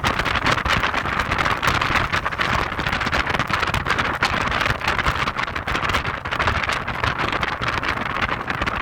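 Heavy wind buffeting on the microphone of a moving Audi TT roadster, a steady rushing noise with constant low rumbling flutter that covers the car's own engine and road sounds.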